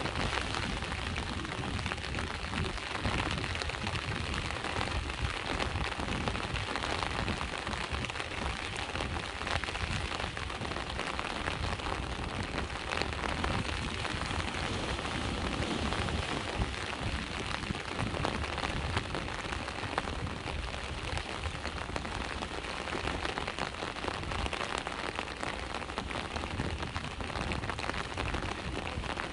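Steady rain falling on surfaces: an even hiss of dense, pattering drops that holds at the same level without letting up.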